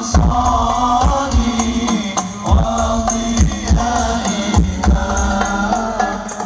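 Hadroh sholawat music played loud through a large outdoor sound system with banks of subwoofers: chanted group singing over frame drums and tambourine, with repeated deep bass thumps.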